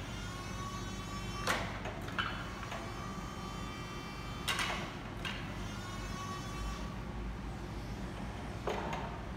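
Cat 2ET4000 electric forklift maneuvering: a steady low hum broken by about six sharp clicks, several of them followed by a high whine that fades over a second or two.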